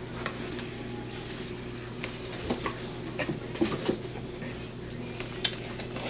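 Steady low hum with scattered light knocks and clicks, typical of things being handled and set down on a table.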